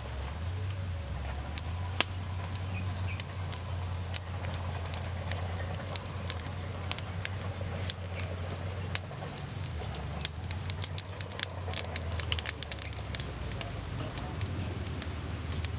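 Irregular sharp crackles and pops from a wood fire under a stone slab with fish cooking on top, growing thicker about two-thirds of the way through, over a steady low rumble.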